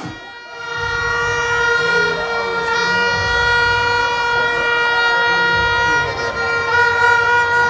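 Plastic vuvuzela-type horn blown in the crowd: one steady, held horn tone that starts about half a second in.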